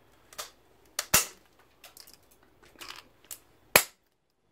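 A clear plastic sheet being broken up with pliers: a series of sharp plastic snaps and cracks as pieces are bitten off, the loudest about a second in and another sharp one near the end.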